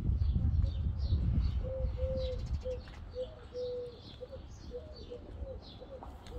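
A pigeon cooing in a repeated phrase of short and longer coos, with small birds chirping at a higher pitch. A low rumble is loudest in the first second.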